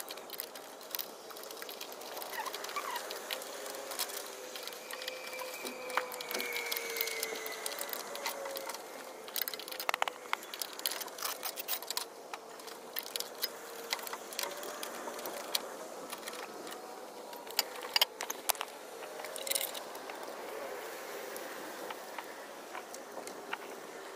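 Scattered light clicks, taps and rattles of small hard objects being handled, with sharper knocks about ten seconds in and near eighteen seconds, the second the loudest.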